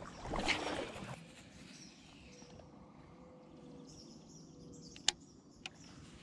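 Kayak paddle stroking through the water for about the first second, then quiet outdoor ambience with faint bird calls. Two short sharp clicks near the end.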